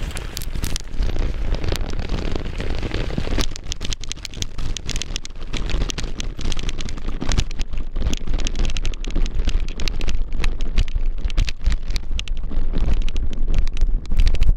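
Wind buffeting the microphone with constant rattling and crunching from a mountain bike riding over a rough dirt trail.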